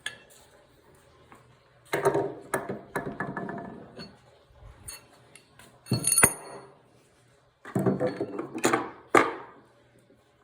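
Metal rifle parts being handled and set down: clatter and knocks in three bursts, about two, six and eight seconds in, the one near six seconds a sharp clink that rings briefly.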